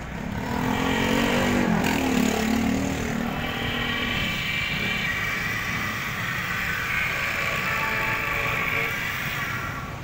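Key duplicating machine's electric motor spinning up about half a second in and running steadily, its cutter wheel cutting a key blank as the carriage is guided along the original key.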